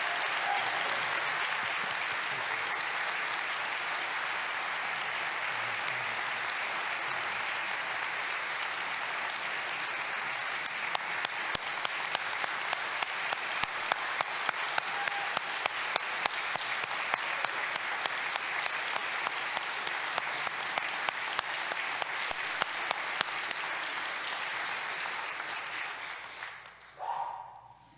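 Audience applauding, a steady wash of clapping that fades out near the end. Through the middle, one person's sharp claps stand out close to the microphone, about three a second.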